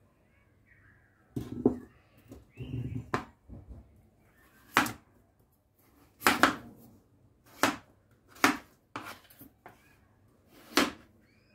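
A few knocks of a glass bowl of peeled potatoes being set down and handled, then a kitchen knife cutting raw potatoes into chunks on a plastic cutting board. Each cut ends in a sharp knock of the blade on the board, about six cuts a second or so apart.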